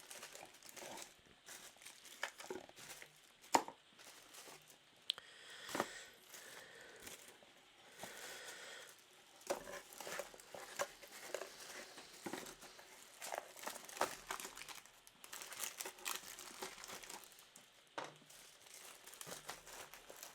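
Plastic accessory bags crinkling and small plastic mounts clicking and knocking as they are packed back into the box. The sound is faint and irregular, with a few sharper knocks.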